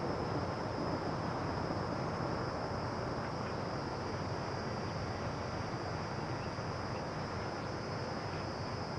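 Steady outdoor ambience: a continuous high insect drone over a steady rushing background noise, with no distinct events.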